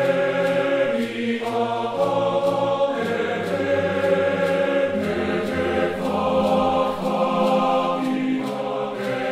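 Music of choir-like chanting voices holding sustained chords that change every second or two, with a faint steady tick above.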